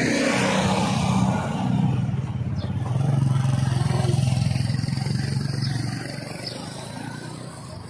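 A motor vehicle engine running close by, swelling in the middle and fading away about six seconds in.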